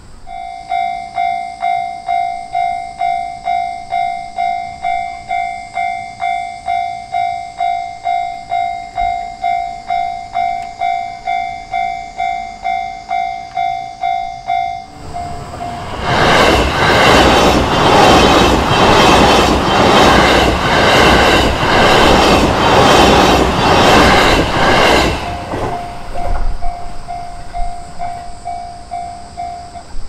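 Japanese level-crossing warning bell ringing in a steady pulse about twice a second. About halfway through, a JR Chuo Main Line train passes for about ten seconds, its wheels clattering rhythmically over the rail joints and drowning the bell. After it has passed, the bell is heard again and stops just before the end.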